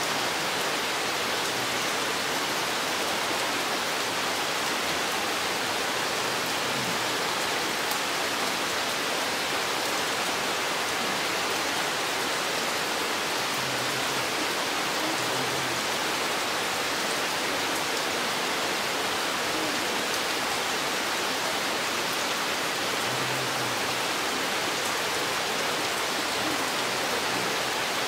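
Steady rain falling on forest foliage: an even, continuous hiss of drops with no let-up.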